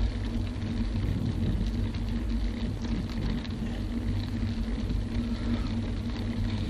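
Steady low rumble of wind on the microphone and tyres rolling on asphalt from a road bike being ridden, with a faint steady hum underneath.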